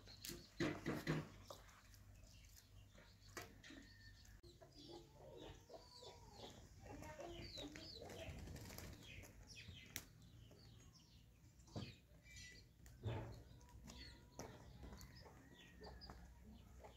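Faint bird sounds, many short chirps and calls, with a few sharp knocks, the loudest about a second in.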